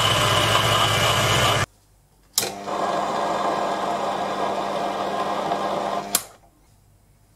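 Proxxon PD 250/e mini lathe running while cutting a steel shaft: a turning pass with a carbide insert that cuts off abruptly a little under two seconds in. After a sharp click the lathe runs again with a steady hum while a single-point tool cuts a thread, and it stops with another click near the end.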